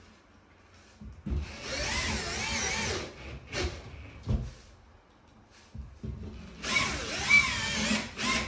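Cordless drill-driver driving screws into plasterboard in two runs of about two seconds each, its motor whine wavering in pitch as it loads. A few sharp knocks come between the runs.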